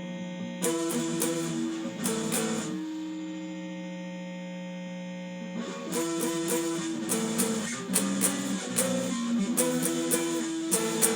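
Electric guitar playing power chords: a chord struck a few times and left to ring, then from about six seconds in a quick rhythmic run of chord hits, as he tries out a candidate chord against the song.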